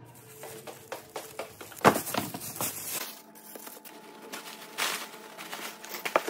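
Plastic grocery bag full of trash rustling and crinkling as it is handled, with irregular sharper crackles, the loudest about two seconds in.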